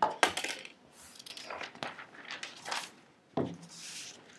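Clicks and knocks of small hard objects being handled on a table: a few sharp knocks at the start, then lighter scattered clicks and rustles.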